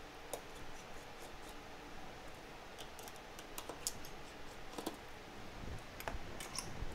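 Faint, scattered light clicks and scrapes of fingers and small metal parts on an opened iPhone 6, with more clicks close together near the end as a removed part is set down on the work mat.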